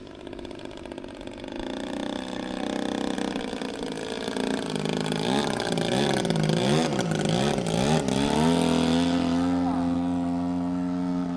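Desert Aircraft DA-120 twin-cylinder two-stroke gas engine of a large RC aerobatic plane in flight, growing louder as it approaches. Its pitch wavers up and down several times about halfway through, then holds steady near the end.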